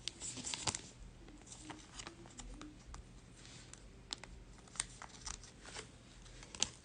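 Baseball trading cards being handled and sorted by hand: soft sliding and rustling with scattered light clicks and taps.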